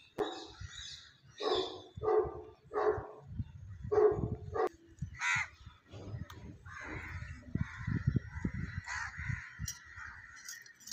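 Crows cawing in a series of short harsh calls, about one every half to one second, for the first five seconds. After that a steady hiss takes over.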